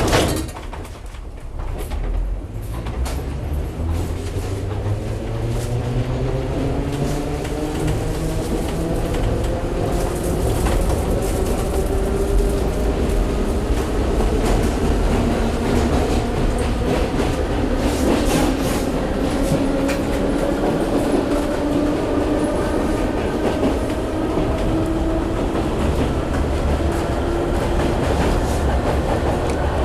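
Train starting off and gathering speed. A pitched machine whine rises for about ten seconds and then holds steady over the rumble of the running train, with wheels clicking over the rail joints.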